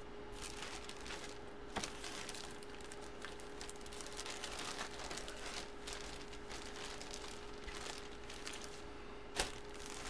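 Plastic packaging crinkling and rustling as it is handled, with a couple of sharper clicks: one about two seconds in and one near the end. A faint steady hum runs underneath.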